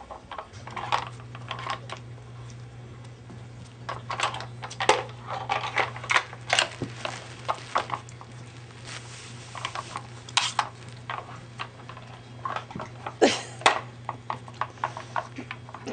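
Hard plastic layers of a Dog Tornado puzzle toy clicking and clattering as a dog noses and paws them round, in irregular flurries of quick clicks.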